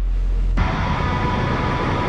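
Film soundtrack sound design: a deep bass drone, then about half a second in a dense rushing noise with a steady hum cuts in suddenly and holds.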